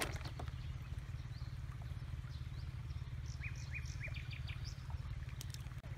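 A small bird calling outdoors: a quick run of about five short chirps from about the middle, with a few higher calls around them, over a steady low rumble.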